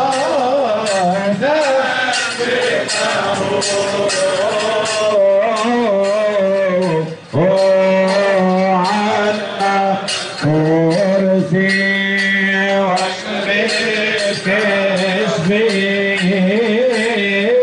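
Voices singing a Coptic hymn over music, with a steady run of percussion strokes; the sound dips briefly about seven seconds in.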